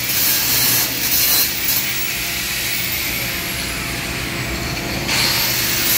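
Electric angle grinder grinding a metal pipe joint, throwing sparks. It is then lifted off and runs free with its whine slowly falling in pitch, and speeds back up with a rising whine about five seconds in.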